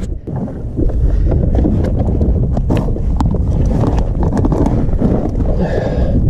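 Wind buffeting the microphone on an ocean kayak, a loud low rumble that grows louder about a second in, with scattered light knocks and taps and a brief higher rasp near the end.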